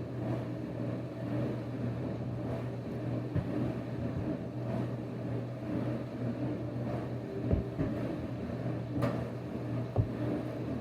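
A steady low hum, with a few soft knocks and taps now and then.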